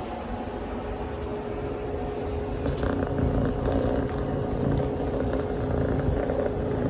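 Scottish Fold cat purring close to the microphone, a low rumble that grows louder a couple of seconds in.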